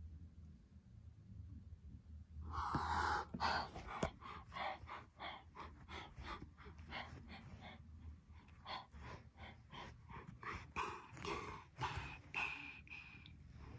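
A person making animal noises with their mouth: a loud breathy burst about two and a half seconds in, then a quick run of short huffs and gasps, about two or three a second.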